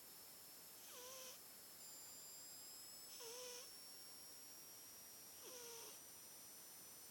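British shorthair cat snoring in its sleep: three faint snores a little over two seconds apart, each a short, slightly wavering whistle-like tone with a breathy hiss.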